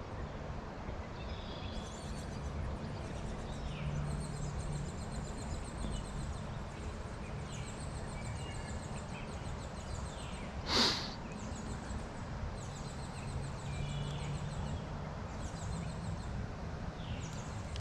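Steady rush of a tailwater stream's flowing water, with birds chirping repeatedly over it and one brief sharp sound about eleven seconds in.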